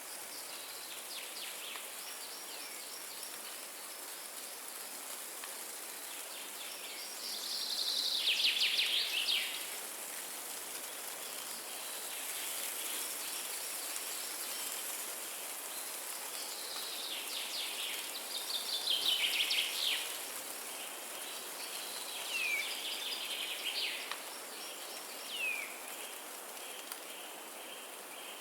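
Steady wind rushing through forest trees, with songbirds singing over it. Rapid trills are loudest about 8 seconds and about 19 seconds in, and short falling chirps come near the end.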